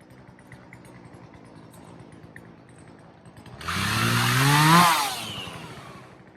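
Gas chainsaw revved once, about three and a half seconds in: the engine climbs in pitch for about a second, then drops back and fades away.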